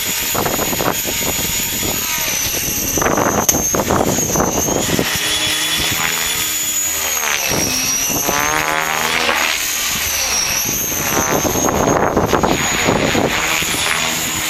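Align T-Rex 550 electric RC helicopter in flight, its motor and Edge 523 mm rotor blades giving a steady high whine that wavers up and down in pitch as it manoeuvres. Wind gusts buffet the microphone in uneven surges.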